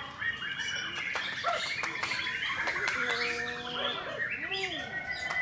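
White-rumped shama (murai batu) singing: a varied song of clear whistles, held notes and arching glides, with a run of fast, sharp repeated notes (the 'tembakan' keepers prize) about a second in.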